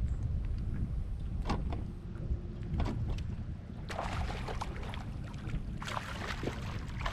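Wind rumbling on the microphone on a small boat in choppy water, with a few light knocks and water splashing against the hull in short bursts, around four seconds in and again near the end.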